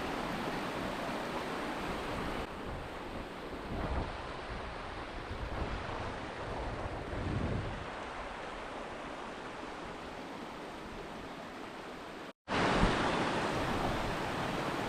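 Steady rush of a freshwater creek flowing over rocks, with a few low thumps; the sound cuts out for a moment about twelve seconds in.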